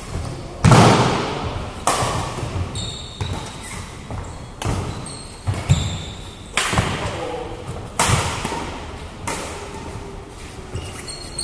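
Badminton rally: racket strings striking a shuttlecock about once every second or so, each hit sharp and echoing in a large metal-walled hall, the hardest about a second in. Short high squeaks of shoes on the court floor come between some hits.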